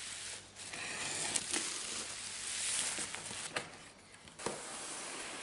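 Plastic parcel wrapping rustling as it is pulled off a box by hand, with a few sharp crackles along the way. Near the end, the cardboard box sleeve rubbing and scraping as it slides off.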